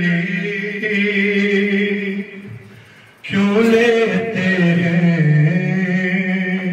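A man chanting a noha, a Shia lament, unaccompanied into a microphone. He holds two long drawn-out phrases, with a short break about two and a half seconds in.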